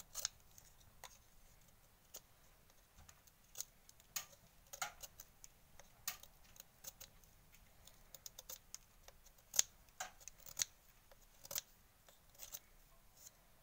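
Knife blade shaving and cutting the end of a dried reed to carve the nib of a reed pen (calame): irregular faint sharp cuts and short scrapes, a dozen or more spread unevenly.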